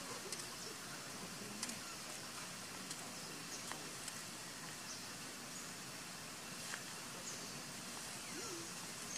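Forest ambience: a steady hiss with scattered short, high-pitched chirps.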